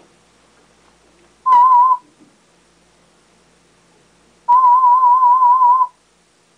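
Audiometer warble tones, a mid-pitched tone wavering quickly up and down, sounding twice: a short beep about a second and a half in, then a longer one of about a second and a half near the end. They are the test tones of an aided hearing test for a cochlear implant user.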